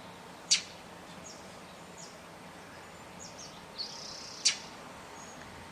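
Northern mockingbird fledgling calling for food: two sharp, loud calls about four seconds apart, the second preceded by a short harsh rasp. Faint high chirps sound in the background.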